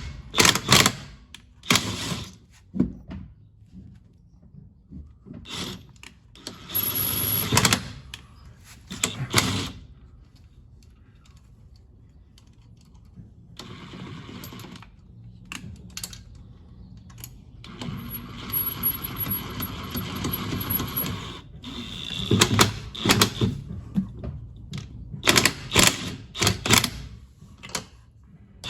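Cordless impact wrench working on the wheel lug nuts in repeated bursts of a second or two, with quiet pauses between them. A thin high whine runs during some bursts, and there are sharp clatters of nuts and tools near the end.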